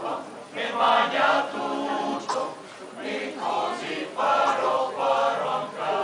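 Male choir singing, in short phrases that swell and briefly pause.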